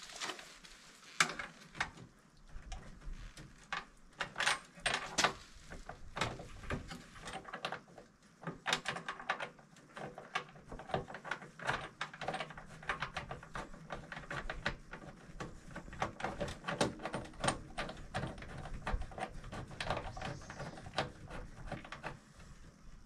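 Irregular metallic clicks, taps and rattles of metal conduit fittings being handled at a breaker panel: a 3/4-inch chase nipple fitted through the panel's bottom knockout and threaded into an LR conduit body.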